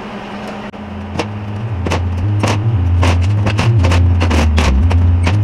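Background music fades in about a second in, with a deep bass line that steps between a few low notes and sharp hits that come faster toward the end, over metal clinks of steel C-clamps being taken off a tack-welded steel tube frame.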